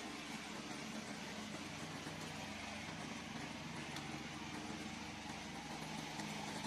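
Remote-controlled steep-slope lawn mower's engine running steadily.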